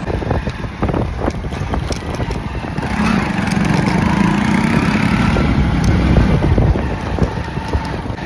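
Hero motorcycle running as it is ridden along, with road noise. The sound swells for a few seconds in the middle.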